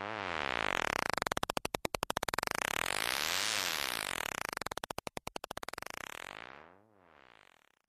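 Moog Werkstatt-01 analog synthesizer playing a rapidly pulsing buzzy tone that sweeps down and up in pitch twice, then fades out near the end.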